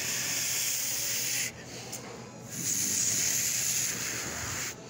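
A person making a long hissing 'shhh' with the mouth as a pretend jet or flying-craft engine, in two long hisses with a short pause between them.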